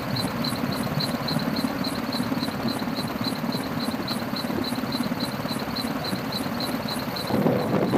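Engine and rotor noise inside an aircraft filming from the air: a steady deep rumble with a fast, even pulsing hiss of about four to five beats a second. The rumble gets louder near the end.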